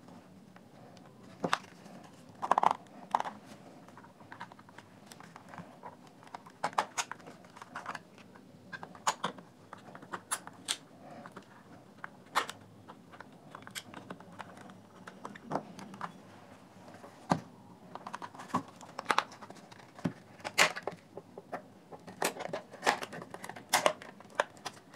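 Irregular sharp plastic clicks and snaps as a Dell laptop battery's plastic case is pried apart at its seam, its snap-fit clips releasing one at a time, with rubbing and handling of the plastic between.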